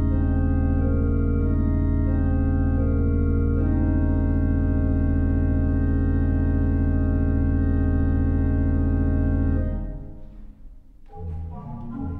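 Grant, Degens & Bradbeer pipe organ playing a loud held chord over deep pedal bass, with upper notes moving in the first few seconds. Near the end the chord is released and trails off in reverberation, and a quieter passage of short, quick notes begins.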